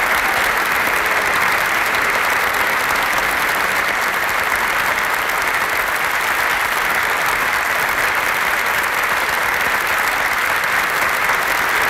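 Audience applauding steadily, a dense unbroken clapping that neither builds nor fades.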